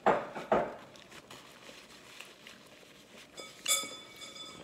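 Spoons scraping and tapping in paper food cups: two sharp knocks just after the start, light clatter, then a short ringing clink about three and a half seconds in.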